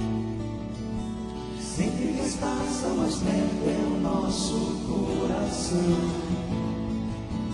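Live acoustic band music: several acoustic guitars playing together, with men's voices singing.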